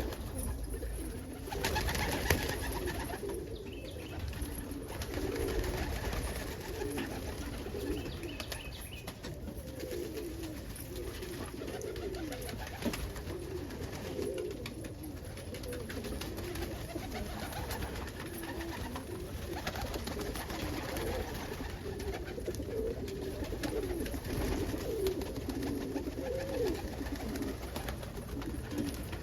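Indian Fantail cock pigeon cooing over and over, short low calls following one another without a break.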